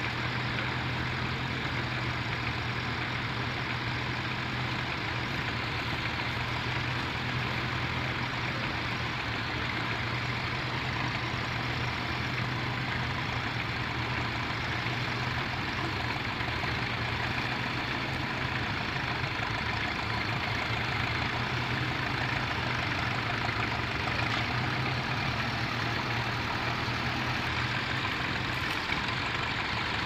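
Vintage grey Ferguson tractor's engine running steadily under load as it pulls a mounted plough through stubble.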